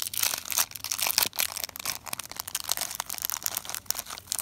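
A plastic packet of sequins crinkling as it is handled and the sequins are shaken out, a rapid run of small crackles.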